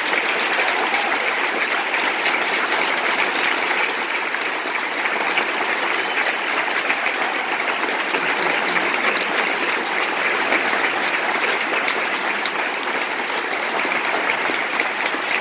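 Concert-hall audience applauding steadily, a dense, even clapping that holds at one level throughout.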